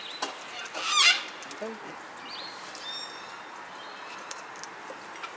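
Sulphur-crested cockatoo giving one short, harsh screech about a second in, with scattered light clicks and taps as the cockatoos feed from a steel bowl. A few thin, high chirps follow.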